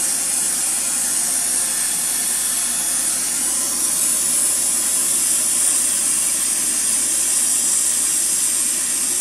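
Brazing torch flame hissing steadily as it heats a copper refrigerant line joint while 15% silver solder is fed in.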